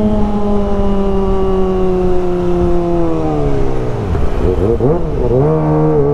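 Kawasaki ZX-25R 250 cc inline-four engine and exhaust while riding: the revs ease off slowly, fall steeply about three seconds in, dip and rise a few times, then hold steady and start to climb again near the end. A low rumble of wind runs underneath.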